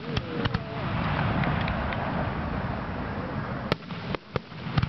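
Fireworks display: a few sharp pops, then a dense stretch of crackling from the bursting shells, then one very sharp bang nearly four seconds in and a few more reports near the end.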